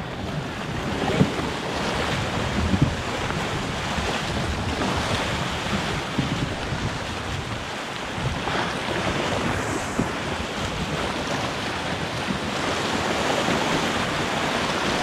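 Fast-flowing river water in full flood rushing past, a steady hiss, with wind buffeting the microphone.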